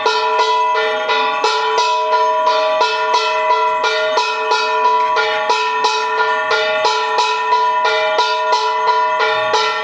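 Background music of bright plucked or bell-like notes in a quick, even run, about three notes a second, each ringing on.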